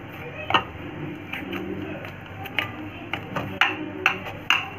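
Dough being kneaded by hand in a ceramic plate, with a string of irregular sharp knocks and clicks as the hand works against the plate.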